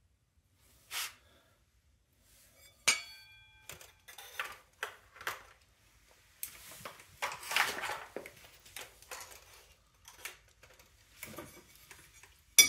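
Metal parts and tools clinking and clattering as they are handled and set down, with one metal piece ringing after a sharp strike about three seconds in, a stretch of rubbing and rustling around seven seconds in, and a loud sharp clink near the end.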